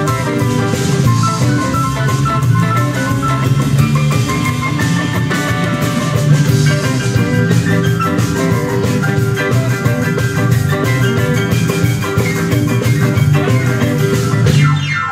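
Blues band playing an instrumental passage: grand piano notes over bass and drums.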